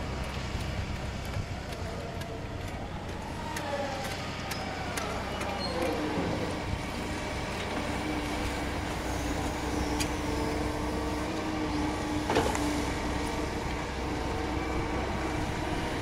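Wheeled excavator's diesel engine running under a steady low rumble, its note rising and falling as the machine works, then holding steady. A few sharp knocks, the loudest about twelve seconds in.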